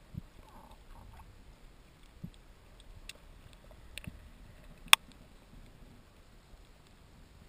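Underwater sound picked up by a camera in its housing: scattered faint clicks and a few dull knocks, with one sharp, loud click about five seconds in.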